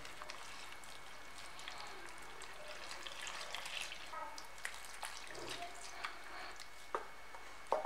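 Wooden spoon stirring flour and palm sugar water into a wet batter in a bowl, with more liquid poured in: faint wet sloshing and squelching. Two sharp clicks come near the end.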